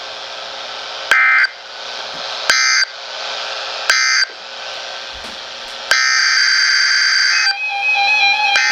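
Emergency Alert System end-of-message code: three short bursts of screechy digital SAME data tones, about 1.4 s apart, over a steady hiss of radio static. A longer burst of tones follows about six seconds in, and steady tones sound near the end.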